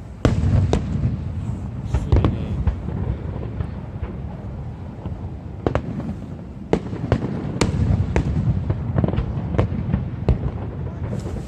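Aerial fireworks bursting. A loud bang comes about a quarter second in, then sharp cracks come every second or so over a continuous low rumble.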